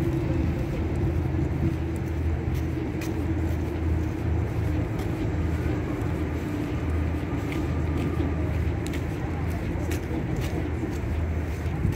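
Steady low rumble and hum of a vehicle in motion, with faint scattered ticks.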